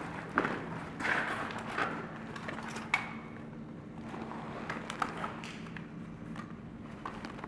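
Footsteps and gear scuffs of a player moving on foot, irregular knocks, with one sharp metallic click about three seconds in.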